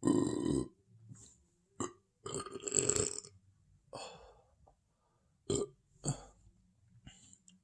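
A person burping on a somewhat full stomach: two loud burps about two seconds apart, the second one longer, followed by a few short, sharp sounds.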